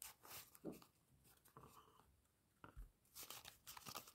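Faint rustling and crinkling of small folded paper packets being handled and shuffled, in several short rustles with a cluster near the end.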